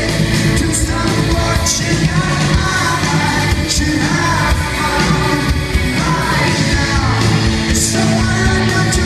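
Live rock band playing loudly, with singing over guitars and drums and cymbal hits recurring every second or so.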